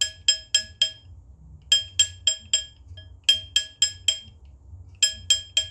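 A hammer strikes a gold ring fitted on a stainless steel ring mandrel, stretching the ring to a larger size. The strikes come in quick runs of about four a second with short pauses between, and each one rings out with a bright metallic clink.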